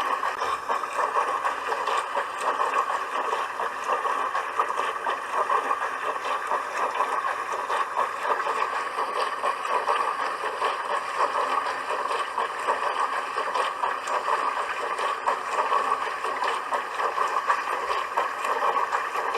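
Dishwasher running its wash cycle: a steady, unbroken rush of spraying and splashing water inside the machine.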